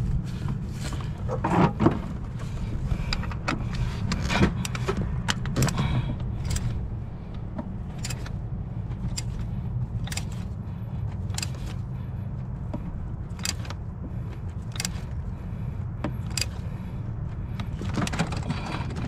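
Ratchet and socket clicking in short strokes, about one click every second or so, as a new oil pressure sensor is tightened into the engine, over a steady low hum.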